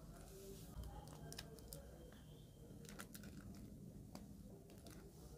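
Plastic piping bag crinkling faintly as it is squeezed and handled, with scattered small clicks.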